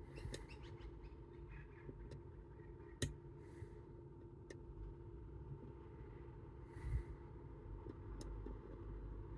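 Scattered small sharp clicks of lock picks working inside a Chubb Detector lever lock, with a duller knock about two-thirds of the way through, over a faint steady hum.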